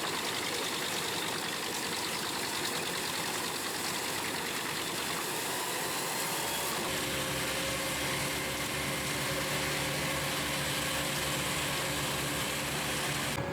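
Wood chipper machinery running with an even, noisy mechanical sound. About seven seconds in it changes abruptly to a deeper engine hum carrying a few steady tones.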